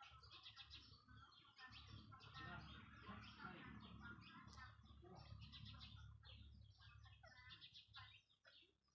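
Faint, busy chirping of small birds, with a low rumble underneath.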